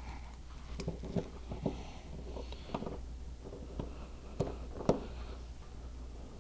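Scattered clicks and knocks of a cable connector being handled and fitted into a port on the back of a metal display cabinet, the sharpest knock about five seconds in, over a steady low hum.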